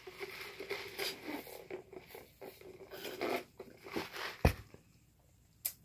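Close-up chewing and crunching of fried fast food, an irregular run of small crackles, with a sharp click about four and a half seconds in and another near the end.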